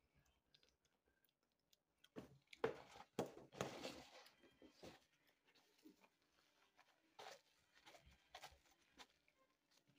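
Faint handling noises: a plastic takeout container being moved and a paper napkin rustling. They come as short scrapes and rustles, bunched about two to four seconds in and again a few times near the end, between near-silent stretches.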